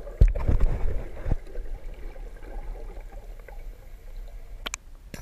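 Scuba divers' exhaled bubbles heard underwater through a camera housing: a few loud gurgling surges in the first second or so, then a softer steady wash, with a sharp click near the end.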